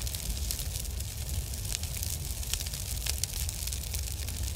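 Crackling fire sound effect: a steady low rumble under a hiss dotted with sharp pops and crackles.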